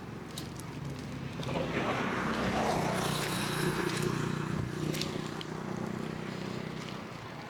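A motor vehicle engine running with a low hum, swelling over a couple of seconds and then fading, with a few light clicks.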